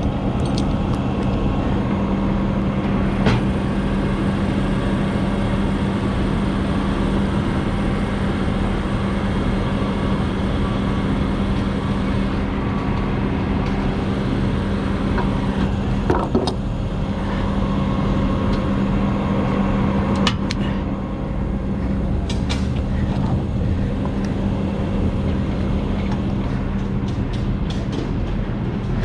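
Heavy truck diesel engine idling with a steady hum, and a few sharp metallic clanks from the trailer deck and winch gear. The hum fades near the end.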